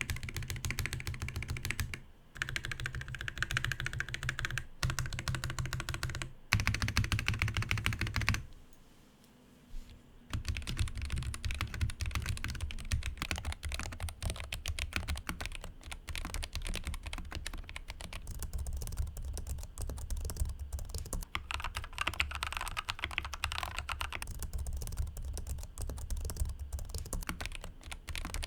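Fast typing on a Royal Kludge N80 low-profile mechanical keyboard with RK Red linear switches and low-profile double-shot ABS keycaps: a dense, continuous stream of light key clacks. A few short pauses come in the first third, and there is a lull of about two seconds just before the middle.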